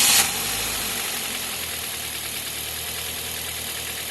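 Toyota Corolla four-cylinder engine catching at the end of cranking, flaring briefly, then settling into a steady idle with its accessory belt removed. It idles smoothly without the noise heard before, which points to a belt-driven accessory, most likely the non-original water pump.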